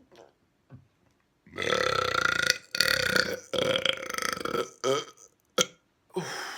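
A big, deliberate burp: after about a second and a half of quiet, one long loud belch of about three seconds comes out in three surges. A short sharp sound follows, and another sound starts near the end.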